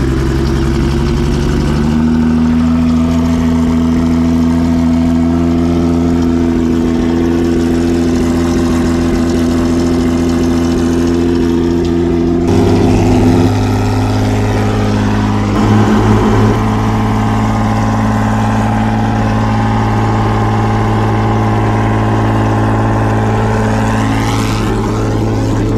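Homemade 5-liter V12 racing engine idling steadily, its pitch stepping to a new steady level about two seconds in and again about halfway through. A short rising whine near the end.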